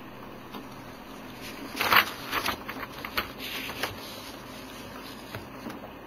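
Sheets of paper rustling and crackling as they are picked up and handled, loudest about two seconds in, then a few shorter crackles, over a faint steady hiss.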